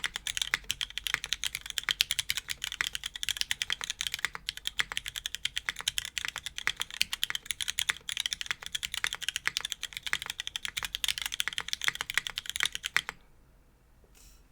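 Fast, continuous typing on an F1-8X V2 mechanical keyboard fitted with light linear Cherry MX Blossom switches: dense key clacks that stop suddenly about a second before the end.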